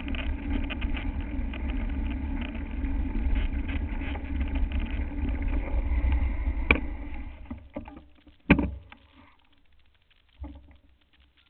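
Mountain bike riding over a rough dirt track, heard from a camera mounted on the bike: a steady low rumble of tyres and the jolting frame, broken by sharp knocks about seven and eight and a half seconds in. The rumble then dies away as the bike slows to a stop, with one more faint knock near the end.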